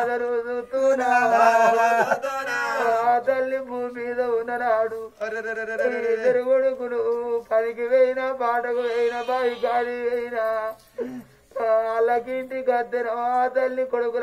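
Unaccompanied voice singing long, drawn-out phrases of an Oggu Katha ballad, with brief pauses between lines.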